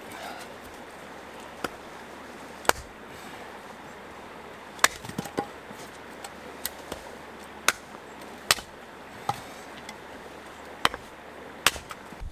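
Small hatchet chopping and splitting short lengths of firewood: about ten sharp strikes at irregular intervals.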